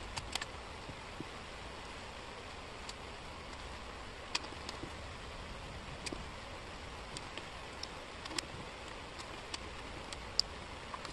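Small wooden jigsaw puzzle pieces handled and set down on a table: irregular light clicks and taps of wood on wood, the sharpest near the end, over a steady hiss.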